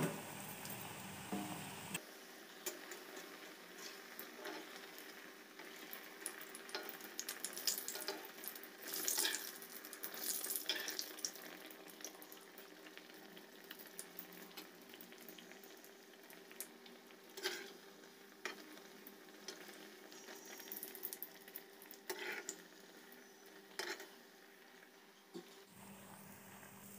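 Malpua batter deep-frying in hot oil in a kadai: a soft, steady sizzle with scattered crackles and pops, busiest a third of the way through.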